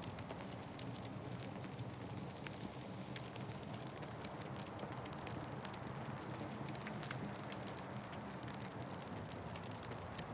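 Fire burning in a fireplace: a steady low rush with many small sharp crackles and pops scattered irregularly throughout.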